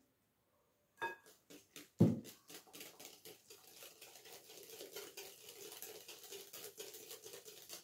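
A knock about two seconds in, then a wire balloon whisk beating runny egg-and-milk cake batter in a glass bowl: a fast, continuous run of ticking strokes against the glass.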